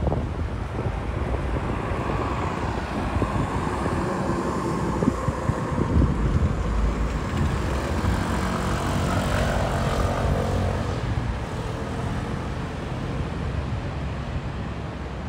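An aircraft passing overhead: a droning engine sound that swells over several seconds to a peak about two-thirds of the way through, then fades, over steady street rumble.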